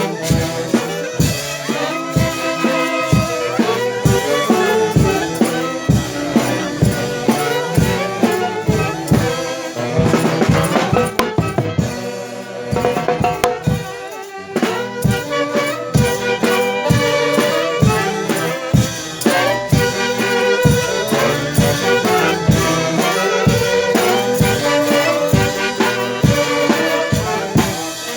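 Band music with brass instruments and drums playing over a steady beat, easing briefly about halfway through.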